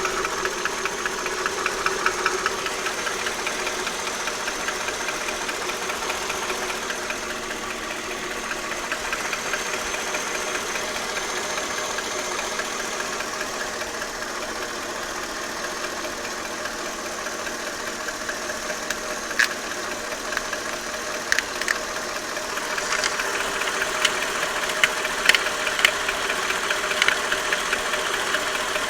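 Mercedes-Benz M113 4.3-litre V8 idling warm, with a slight knock from the left side that shows up only once the engine is warm. In the second half a few sharper knocks stand out above the idle. The owner has not traced the cause: a new harmonic balancer and different oil grades have not changed it.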